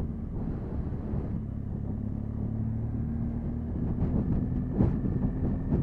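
BMW motorcycle engine running at a steady cruising speed, with low rumbling road and wind noise and a brief gust of wind on the microphone near the end.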